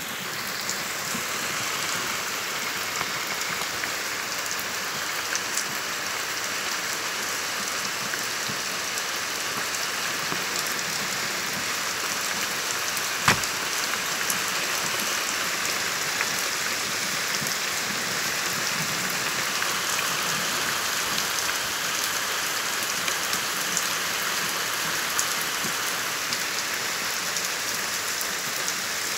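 Torrential rain pouring steadily, a dense hiss of drops hitting the ground and surfaces. There is one sharp click about halfway through.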